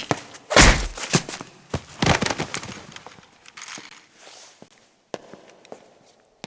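Foley sound-effects track playing back: an irregular run of knocks, clicks and thuds, with two heavy thumps in the first two seconds, then lighter, sparser taps.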